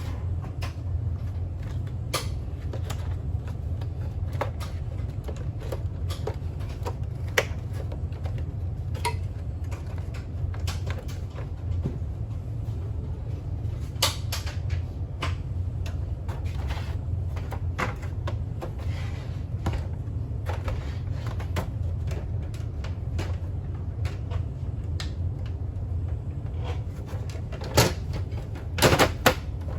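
Scattered clicks and knocks of parts and tools being handled during repair work on a coffee machine, over a steady low hum, with a cluster of louder knocks near the end.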